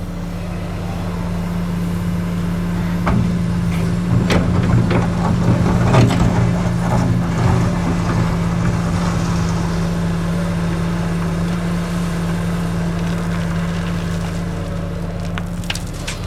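Komatsu PC450LC-7 excavator's diesel engine running steadily while loading gravel, with the gravel crunching and clattering from about three to eight seconds in and again near the end.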